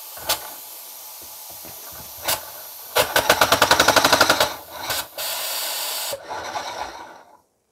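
Compressed air hissing through a 3D-printed opposed piston engine, with a few single clicks. About three seconds in it runs in a fast, even chugging of about a dozen strokes a second for a second and a half, then stops stroking while the air keeps hissing: the engine stalls under the banana's weight. The air cuts off near the end.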